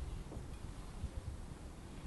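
Faint, uneven low rumble of wind buffeting an outdoor microphone.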